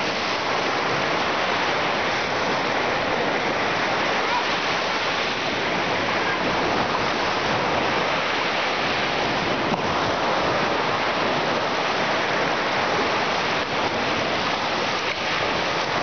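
Baltic Sea surf breaking and washing up a sandy beach: a steady, even rush of waves at the water's edge.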